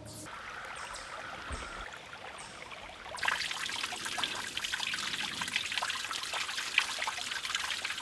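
Shallow creek water trickling and babbling over rocks, steady and fairly soft at first, then abruptly louder and closer about three seconds in.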